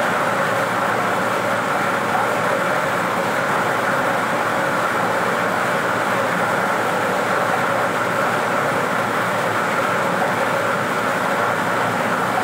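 Lottery draw machine running: numbered balls tumbling and clattering inside a clear acrylic drum as they are mixed, a dense, steady rattle with a faint steady machine tone under it.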